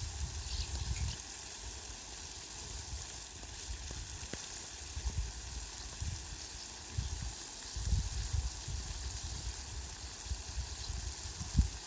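Steady rain falling, an even hiss, with irregular low rumbling surges coming and going, strongest about eight seconds in and near the end.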